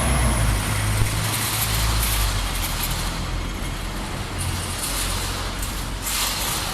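Steady low rumble and hiss of a vehicle running.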